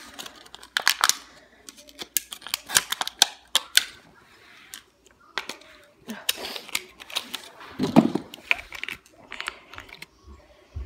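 A toy's plastic and cardboard packaging being handled and pulled open by hand: a string of irregular sharp clicks, taps and crackles.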